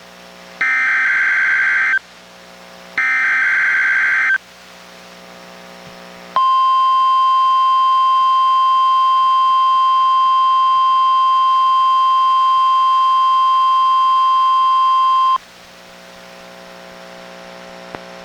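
NOAA Weather Radio test signals received on a Reecom R-1630 weather radio. First come two harsh, buzzing bursts of SAME digital header data, each about a second and a half long. After a short pause comes the 1050 Hz warning alarm tone, a single steady tone held for about nine seconds that stops abruptly, and then only faint hiss and hum remain.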